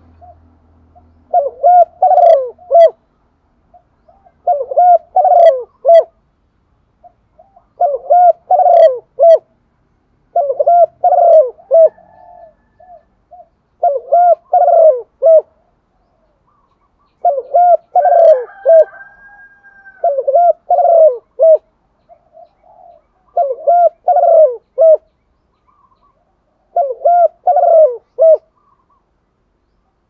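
Female spotted dove cooing: nine short phrases of several low coos each, one about every three seconds.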